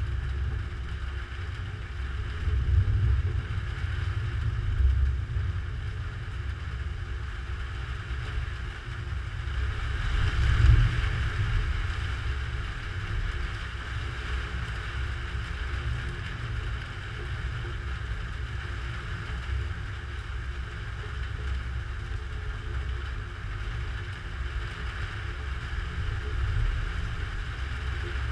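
Thunder rumbling through a lightning storm, a low rumble that swells a few times and peaks about ten seconds in, over a steady hiss.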